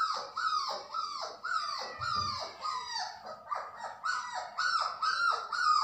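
Young puppies, about a month old, whining and crying without pause: a quick run of short, high cries, each dropping in pitch, two or three a second.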